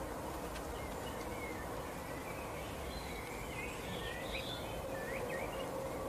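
European goldfinches twittering in short, quick chirps, thickest in the middle seconds, over a steady outdoor background hiss with a faint hum.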